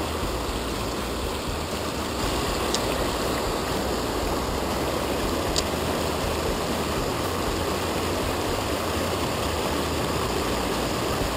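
Steady rush of river water pouring over a small weir cascade close by. Two faint clicks come about 3 and 5.5 seconds in.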